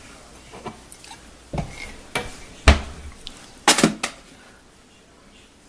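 A ceramic coffee mug being handled and set down, a series of knocks and clinks against hard surfaces, the loudest about two and a half seconds in and a quick cluster near four seconds.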